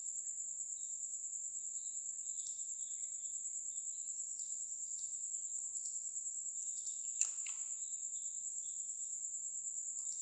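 Steady, high-pitched trilling background noise that pulses quickly and never stops, with a single sharp click about seven seconds in.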